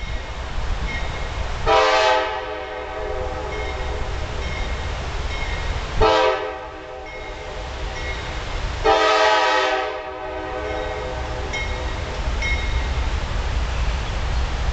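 Horn of an approaching freight train's wide-cab diesel locomotive: three blasts, long, short, long, over a steady low rumble.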